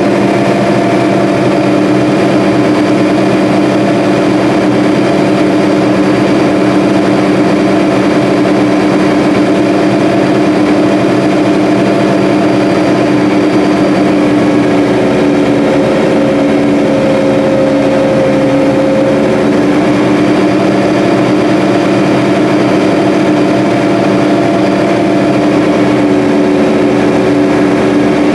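Combine harvester running steadily while harvesting soybeans: an unbroken machine drone with a fixed-pitch hum.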